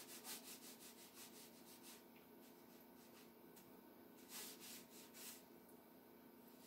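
Faint scratchy strokes of a fine round watercolour brush on paper: a quick run of short strokes in the first two seconds, then two louder rubbing strokes about four and five seconds in, over a low steady hum.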